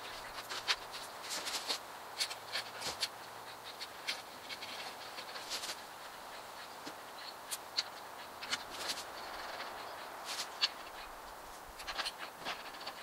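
Mounting bolts on the outdoor unit's feet being tightened by hand: irregular clusters of light metallic clicks and scrapes from the wrench and bolts, over steady outdoor background noise.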